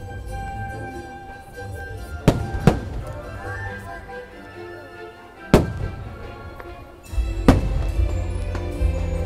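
Fireworks shells bursting with sharp bangs, two close together, one midway and one more about three-quarters through, over the show's music. The music swells louder, with a heavier bass, from about the same moment as the last bang.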